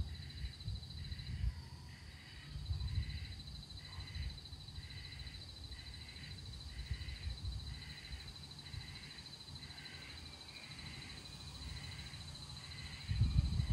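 A frog calls in a steady, regular rhythm, a little under two calls a second, over an insect's continuous high trill. Gusts of wind rumble on the microphone and are strongest near the end.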